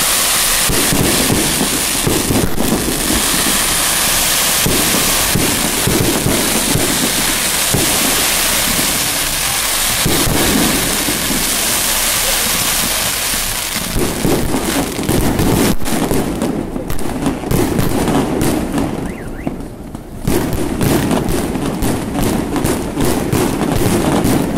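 Fireworks display: a dense, continuous crackling like heavy rain from many bursting shells, with sharp bangs and pops coming thick and fast after about the middle.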